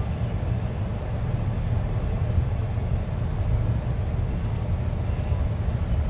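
Steady low rumble inside a car's cabin as it rolls slowly along a dirt road, engine and tyres on the dirt, with a few faint high clicks about four to five seconds in.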